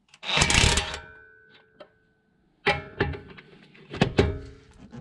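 An impact wrench with a 19 mm socket is breaking loose and running out the brake caliper bracket bolts. A loud burst of hammering lasts about a second, the motor whirs down, and then several shorter bursts of hammering follow with the motor whirring between them.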